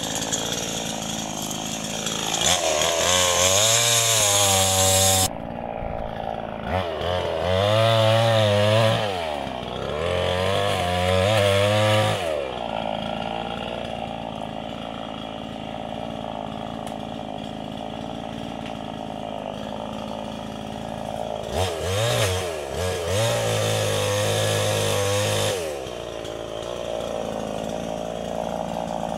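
Osaka petrol chainsaw, a two-stroke, idling and revved up four times as it cuts into oil palm fronds, dropping back to idle between cuts.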